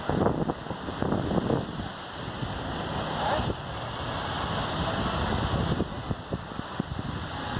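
Wind buffeting the microphone in uneven gusts, over the steady wash of ocean surf.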